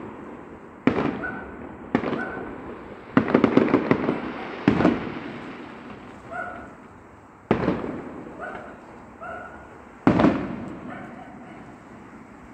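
Aerial fireworks exploding: single sharp bangs every few seconds, each with a long fading echo, and about three seconds in a quick run of crackling reports.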